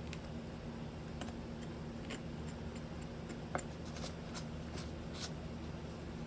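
Hand carving tool cutting into wood: scattered short scraping strokes and light clicks as the blade bites into the grain, one sharper click a little past halfway, over a steady low hum.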